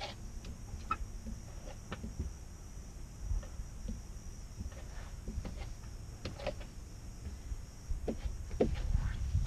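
Hands pressing and rubbing on a truck's side window glass under new tint film, making scattered short squeaks and taps over a low rumble that grows louder near the end.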